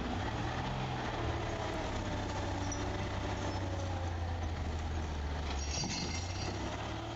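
Heavy vehicle's engine running steadily with a low, even hum; a faint whine glides downward partway through.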